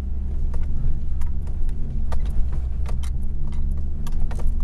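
Hummer H3 engine running low and steady at crawling speed, with scattered clicks and jangling rattles from the cabin as the truck works over a rough trail.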